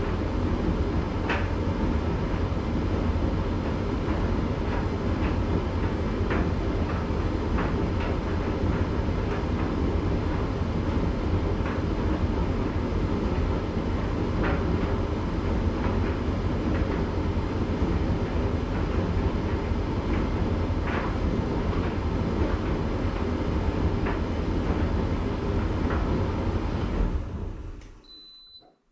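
Candy GrandO 9 kg tumble dryer drum turning a load of towels in its cool-down stage: a steady rumble with scattered small knocks. It winds down and stops near the end, and a high end-of-cycle beep sounds.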